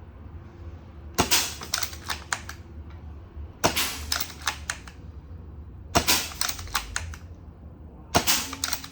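Spring-powered Gewehr 98 airsoft rifle being fired and its bolt cycled, four times at about two-and-a-half-second intervals: each time a sharp crack followed by a quick run of metallic clacks from the bolt action.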